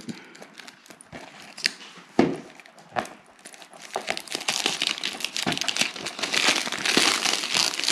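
Cellophane shrink-wrap being picked at and peeled off a DVD case by hand: scattered crackles and ticks at first, then denser, louder crinkling from about halfway through.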